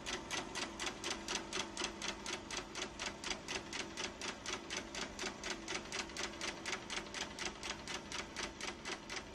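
Film projector running: a rapid, even mechanical clicking, about five or six clicks a second, over a steady low motor hum.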